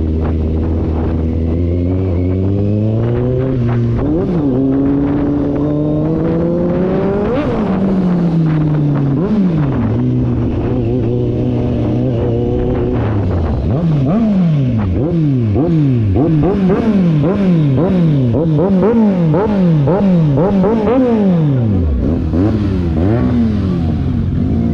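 Kawasaki Z800's inline-four engine through an SC-Project full-system exhaust, very loud. It runs steady, then revs up and falls back a few times. Past the middle it is blipped in quick repeated revs, about one and a half a second, and settles back to a low steady run near the end.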